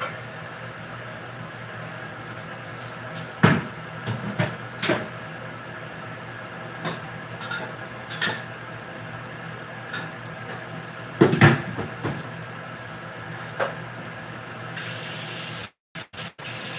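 Kitchen clatter of pots and utensils being handled: scattered knocks and clanks, the loudest a few seconds in and again about eleven seconds in, over a steady background hum. The sound cuts out briefly near the end.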